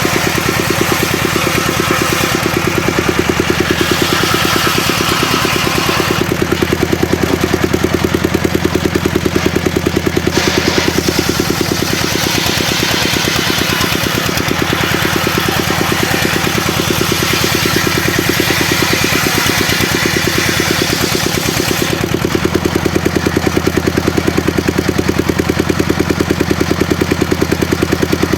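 Engine of a homemade circular sawmill running steadily with an even rapid pulse, while a higher hissing cutting noise from the saw comes and goes in long stretches as timber is ripped into boards.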